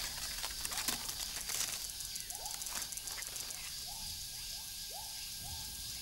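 Quiet nature ambience: a steady high hiss with a run of short whistled animal calls, each falling quickly in pitch, about six of them starting about two seconds in, and a few faint clicks.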